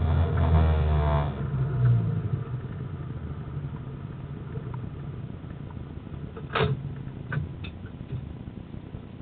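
Car engine heard from inside the cabin, pulling with its pitch shifting, then easing off after about a second and a half and settling to a quiet idle as the car stops. A sharp click comes about six and a half seconds in, followed by two or three lighter clicks.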